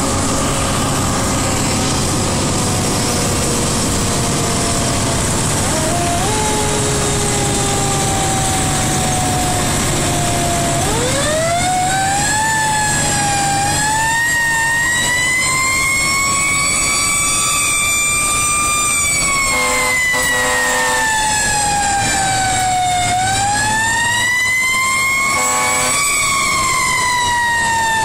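Fire engine siren heard from inside the cab over the truck's running engine. The siren winds up sharply about eleven seconds in, then slowly rises and falls in pitch twice. A short pulsing tone cuts in briefly twice during the wail.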